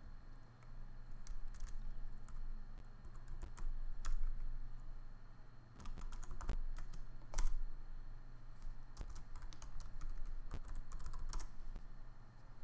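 Typing on a computer keyboard: irregular keystrokes in short runs with brief pauses between them, over a faint steady low hum.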